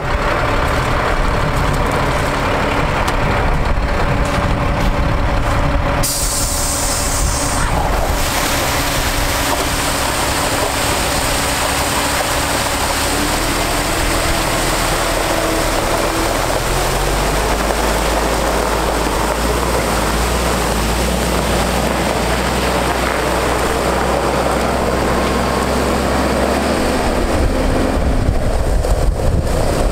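A water truck's Caterpillar 3126 inline-six diesel runs. About six seconds in there is a short burst of air hiss, then water rushes steadily from the rear spray bar onto gravel. Under the rushing the engine note rises as the truck pulls away.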